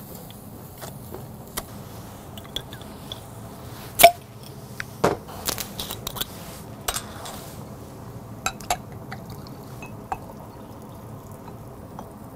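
Glass bottles and a glass clicking and clinking as a soju bottle is opened and handled, with the loudest sharp crack about four seconds in and a cluster of smaller clicks just after. A few scattered clicks follow as a drink is poured.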